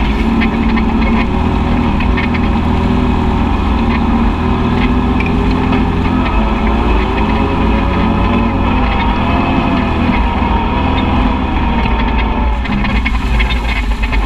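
Side-by-side UTV engine running under way, loud and steady, its pitch rising gently with the throttle around the middle and easing off near the end.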